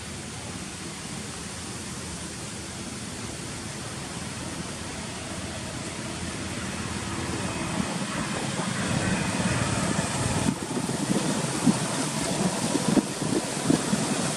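Motorbike engine approaching along a road, rising steadily in loudness over a hiss of outdoor background noise, with a few short knocks in the last few seconds.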